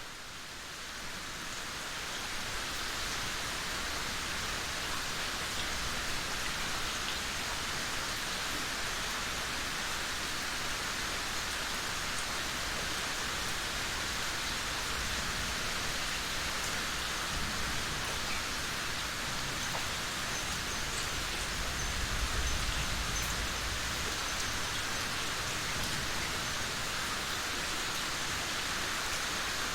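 Steady rain falling, a dense even hiss of drops, fading in over the first couple of seconds. About two-thirds of the way through, a low rumble of distant thunder swells and fades.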